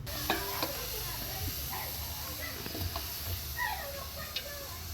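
Meat frying in a pot with a steady sizzling hiss, a few sharp clicks of a utensil, and faint voices in the background.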